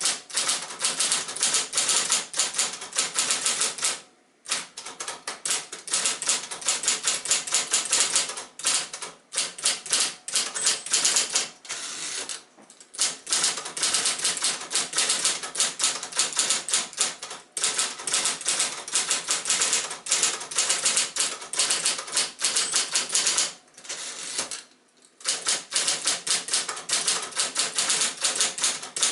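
Royal Apollo 10 electric portable typewriter typing in fast, dense runs of keystrokes, its motor driving each typebar to strike. The runs break off for brief pauses every few seconds, one longer pause about two-thirds of the way through.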